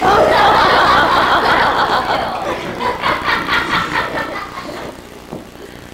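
A roomful of people bursting into loud laughter all at once, dying down over about five seconds.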